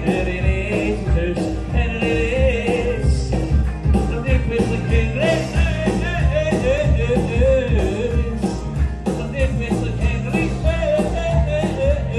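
Live rock band playing a passage without words: a steady drum beat and bass under a lead melody line.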